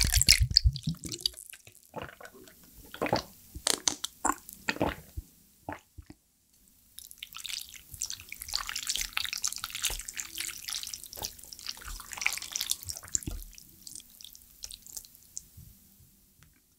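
Bottled tea poured over ice into a glass mug, its pitch rising as the mug fills and stopping about a second in, followed by a few sharp clinks and taps. Later, wet stirring and sloshing as wooden chopsticks lift knife-cut noodles through the broth of a stainless pot of dumpling stew.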